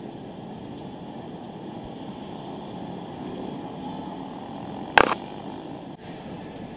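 Steady road and traffic noise heard from a moving bicycle, with one sharp knock about five seconds in.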